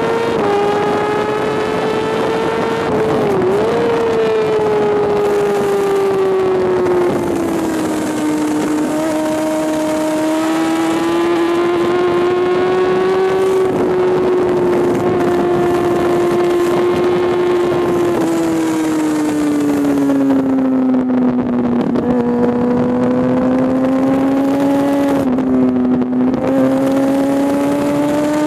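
Sport bike engine running hard at track speed. Its note rises and falls through the corners, with sudden drops or jumps in pitch at gear changes a few seconds in and twice near the end. Wind rushes past the microphone the whole time.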